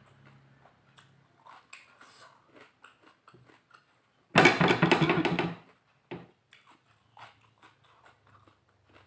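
Close-miked chewing: soft wet mouth clicks and small crunches of food being eaten. About four seconds in, a louder voiced sound lasts just over a second.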